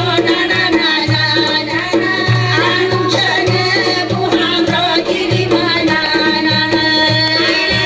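Azerbaijani folk music with frame drums (qaval), held melody lines and a steady low drum beat about two strokes a second.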